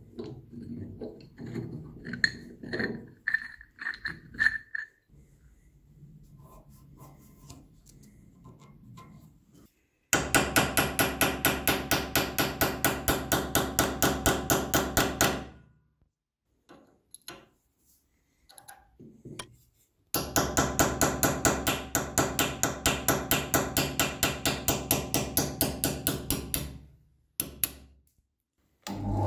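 Quick, even hammer taps on a steel pin punch set against a part of an old screw clamp held in a bench vise, metal on metal. The taps come about five a second in two runs of roughly six seconds each, starting about ten and twenty seconds in. Before them come light metal clicks and rattles as the clamp's threaded spindle is handled and unscrewed.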